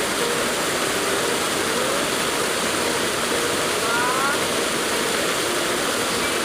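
River water rushing steadily, with a faint high chirp about four seconds in.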